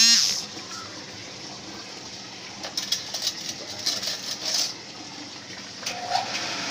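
The end of a loud animal call at the very start. Then a steady hiss, with a run of light clicks and clinks about three to five seconds in.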